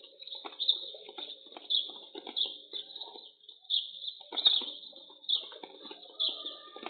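Birds chirping in a quick series of short calls, about one or two a second, heard through a security camera's narrow-band microphone that cuts off the high notes.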